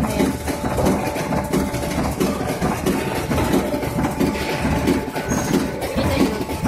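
Automatic horizontal-blind production machine running, with a steady dense mechanical clatter of many small knocks.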